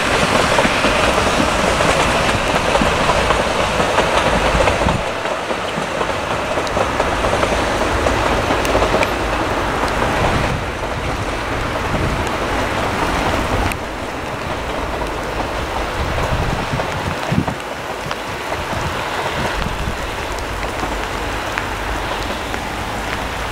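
Narrow-gauge steam train running past with its coaches rumbling and clicking over the rails, fading away as it goes, leaving the steady sound of rain.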